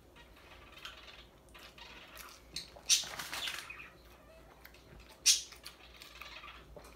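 Quiet eating and food-handling sounds: soft clicks and chewing noise, with two brief sharp noises about three seconds and about five seconds in.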